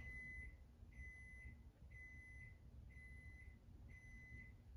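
Microwave oven beeping five times, about once a second, faint and high-pitched: the end-of-cycle signal that the heating is done.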